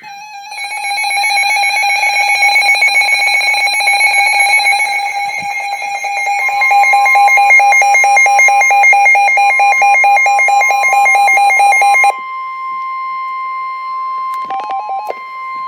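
Emergency Alert System attention signal: a loud, steady electronic alarm tone. About twelve seconds in it drops to a quieter single steady tone that carries on until near the end.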